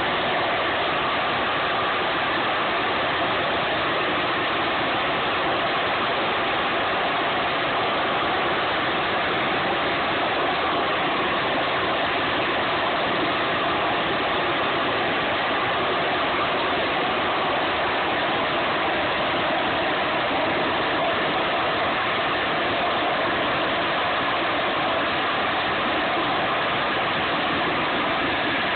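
Harrier jump jet hovering, its Pegasus vectored-thrust turbofan held at high power: a loud, steady jet rush that does not change.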